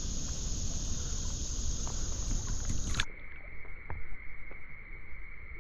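Insects droning steadily at a high pitch over the low sloshing of creek water; about three seconds in the sound cuts abruptly to a quieter stretch where a single steady, lower-pitched insect whine carries on.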